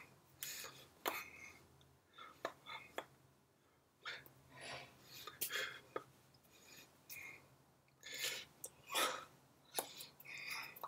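Soft, irregular breaths and mouth noises, with light taps and rustles of hands against a shirt as a person signs in sign language.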